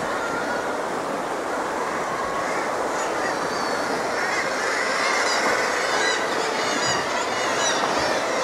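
Many seabirds calling in short, high chirps over the steady wash of sea water against rocks.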